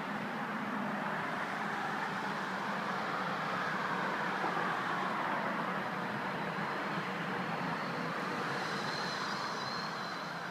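A car driving past on the street, a steady rush of engine and tyre noise that swells in the middle and eases off, with a faint high whine near the end.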